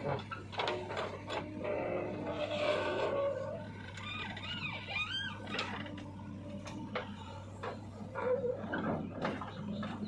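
JCB 3DX backhoe loader's diesel engine running with a steady low hum, with repeated knocks and clatter as the backhoe bucket digs into the soil pile and dumps it.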